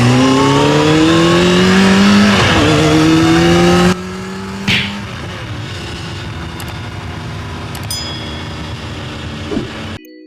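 Motorcycle engine accelerating hard, its pitch rising steadily, with a brief dip and pickup about two seconds in like a gear change. Just before halfway it drops abruptly to a much quieter steady background noise, with a short hiss soon after.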